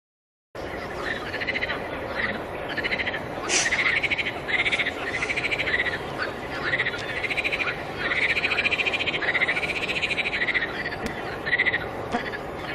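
A chorus of frogs calling: many short, pulsed calls, each rising and falling in pitch, repeating about once a second and overlapping. The sound cuts in suddenly about half a second in.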